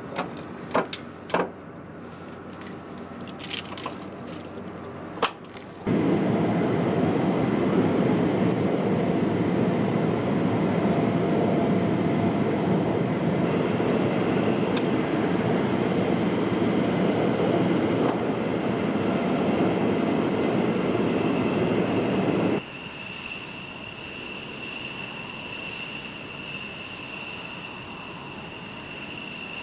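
Flight-line sounds around Gripen jets. First come a few sharp clicks and knocks of ground crew handling panels on the aircraft. Then about seventeen seconds of loud, steady, deep rushing noise stop abruptly and give way to a quieter, steady high-pitched turbine whine.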